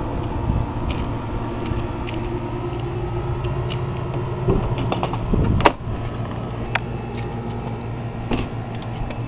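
The camper's entry door being unlatched and opened: a sharp latch click about halfway through and a second click a second later, among small handling ticks. A steady low hum runs underneath.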